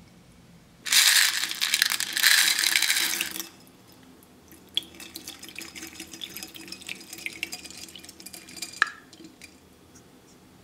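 Water beads poured into a glass bowl of water: a rushing, splashing pour for about two and a half seconds, then scattered small clicks and drips as the beads settle, with one sharper click near the end.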